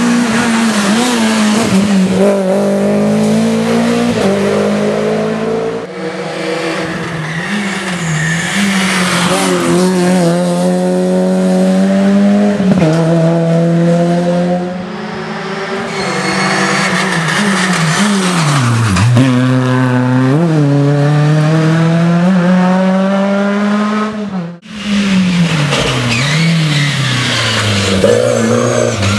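Rally cars at racing speed, in several shots that break off abruptly: engines revving high and dropping repeatedly through gear changes and braking, with tyre squeal.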